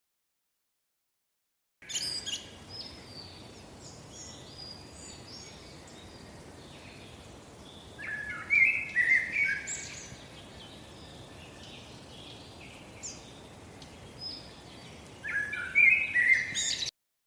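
Small birds chirping and singing over a steady faint hiss, with louder runs of calls about eight seconds in and again near the end. The sound cuts in suddenly after about two seconds and cuts off just before the end.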